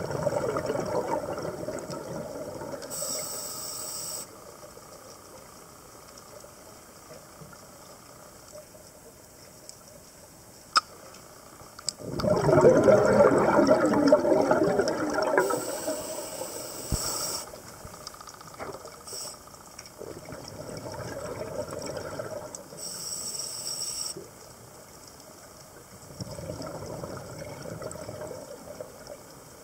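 Scuba diver breathing through a regulator underwater: rumbling bursts of exhaled bubbles alternating with short, high hisses of inhaled air, several breaths in a row, the loudest exhalation near the middle.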